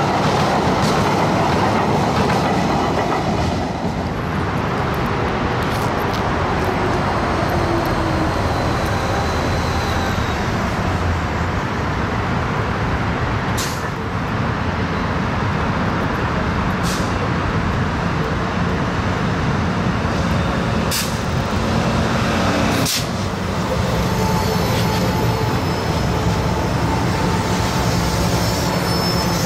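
Metro Expo Line light-rail train running, a steady noise throughout with tones that slide down in pitch a few seconds in and bend again near the end. A few sharp clicks come in the second half.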